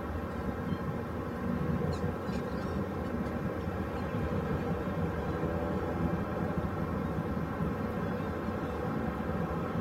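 A steady low mechanical drone, like an engine running, with a few faint, short high chirps of small birds, about two seconds in and again later.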